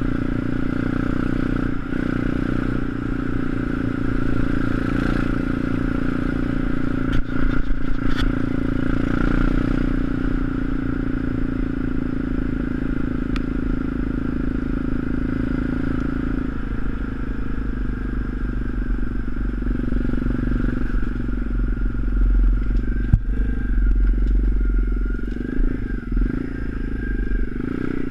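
Pit bike's small single-cylinder engine running at a steady cruise while ridden along a woodland track, with a short clatter of knocks about seven seconds in and a single sharp knock a few seconds before the end.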